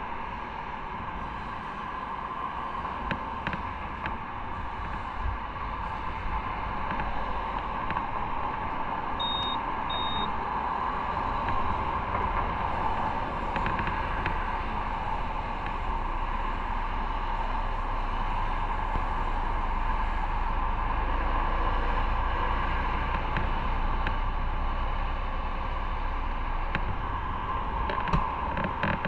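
A motorcycle being ridden on the road: engine and road noise running steadily, getting a little louder about ten seconds in. Two short high beeps come close together about nine and ten seconds in.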